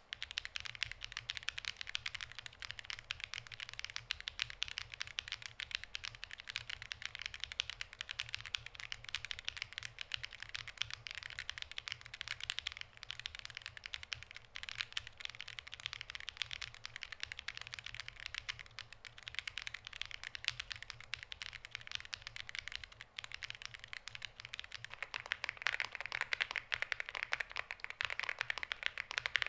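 Continuous fast typing on a NuPhy GEM80 mechanical keyboard with Lemon linear switches and stock stabilizers: a dense stream of key clacks. Near the end the typing sound changes, turning fuller and brighter.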